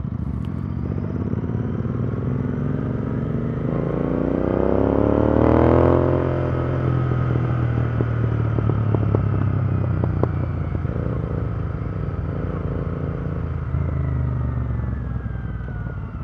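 Royal Enfield Continental GT 650 parallel-twin engine through aftermarket Powerrage long-type exhausts, rising in pitch as the bike accelerates, then running at a steady pitch while it cruises. A few sharp clicks come partway through, and the engine eases off near the end.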